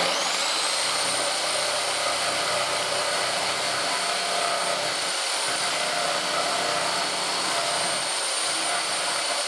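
Electric power tool's motor starting up and running at a steady high speed, its high whine climbing quickly to full pitch and then holding; the pitch sags briefly near the end.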